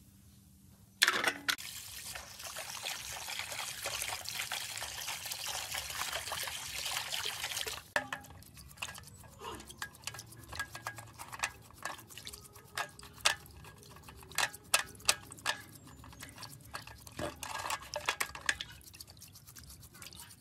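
Water rushing steadily for several seconds and stopping abruptly, then irregular splashing and sloshing as a motor and circuit board are scrubbed with a brush in a basin of water.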